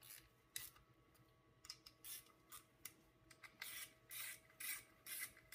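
About a dozen short, faint rasping strokes of hand work on a bolt at an engine's timing cover, coming closer together in the second half.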